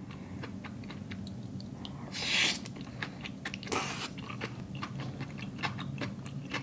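A person eating noodles and broth close to the microphone, with wet chewing and small mouth clicks throughout. There are two short slurps, the louder about two seconds in and another near four seconds. A steady low hum runs underneath.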